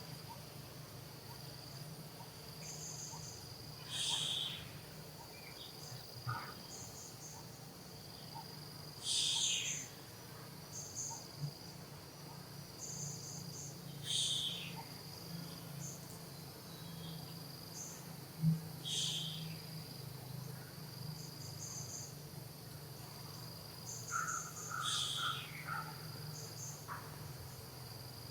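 Insects calling: a steady high-pitched drone, with a louder, sharper high call repeating about every five seconds and short high chirps in between.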